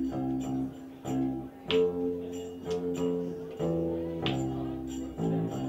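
A small live band playing an instrumental passage: held accordion chords over plucked strings, the notes changing every half second or so, with two sharp accents along the way.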